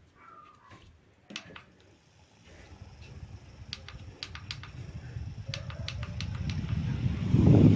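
Small rechargeable desk fan starting and spinning up after a few light clicks, its airflow rising steadily into a loud rush on the microphone.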